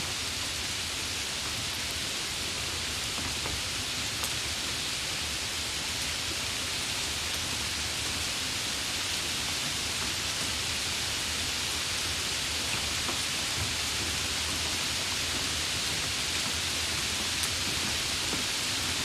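Steady rain falling: an even, unbroken hiss with an occasional faint tick of a single drop.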